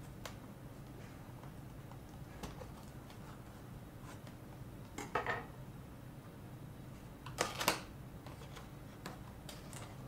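Unboxing sounds of a cardboard box: faint clicks and scratches of a small knife on its packing tape, a short scrape about five seconds in, and two sharp cardboard snaps close together a couple of seconds later as the top flap is worked loose.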